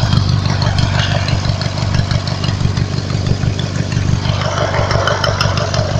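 Riding lawnmower engine running steadily at idle, with an even, fast firing pulse. It is spinning a car alternator through a makeshift string belt, with no electrical load on it yet.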